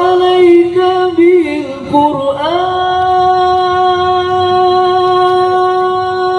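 A solo voice singing a sholawat with no drum beats: a few quick ornamented turns, then one long held note from about two and a half seconds in.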